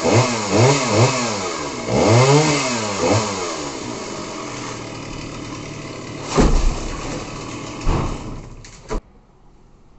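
Two-stroke chainsaw engine blipped up and down in quick revs several times, then running on more steadily and growing quieter. Two heavy thumps come midway, and the sound cuts off about nine seconds in.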